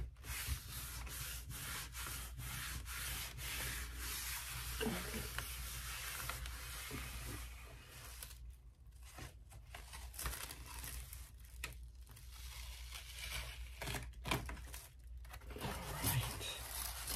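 Hands rubbing and smoothing the back of a deckle-edged sheet of paper laid on an inked gel printing plate, a steady hiss broken by short pauses, to burnish the print onto the paper. Near the end the sheet is peeled off the plate.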